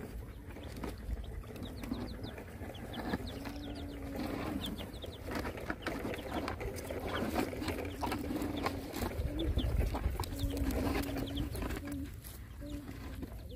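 Chickens clucking, with short high chick peeps, over a steady run of clicks and scrapes from puppies eating with their heads inside a plastic pipe.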